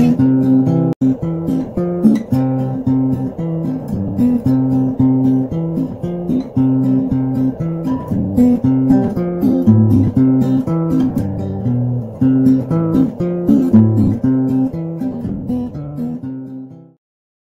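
Background music: a plucked guitar playing a steady rhythmic tune, which fades out and stops just before the end.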